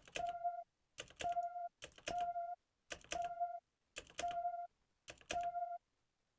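Serum software synthesizer note played repeatedly, about once a second: each one a short noisy click followed by a steady mid-pitched tone that stops abruptly after about half a second, as the envelope's decay and sustain are being set.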